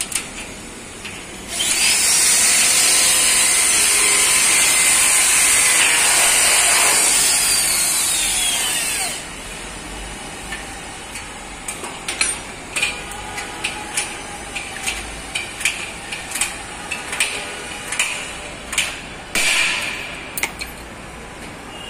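Power drill running at a high pitch for about seven seconds, followed by a string of sharp clicks and knocks, with one short louder burst near the end.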